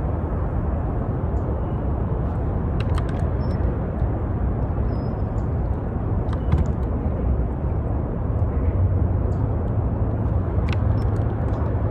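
Steady low outdoor rumble with no clear tone, a little stronger in the second half, with a few faint clicks scattered through it.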